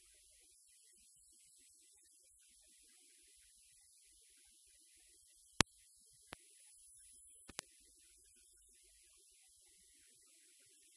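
Faint steady electrical hum and hiss, with three sharp clicks about halfway through, spread over two seconds, the first the loudest.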